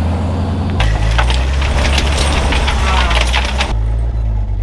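Vehicle engine idling with a steady low hum. From about a second in, a burst of crackling and clicking lasts about three seconds, then stops suddenly.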